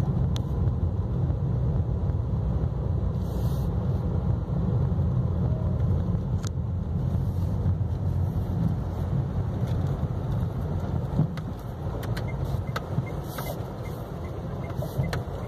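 Steady low rumble of a car driving slowly, heard from inside the cabin, with a few faint clicks and ticks scattered through it, more in the second half.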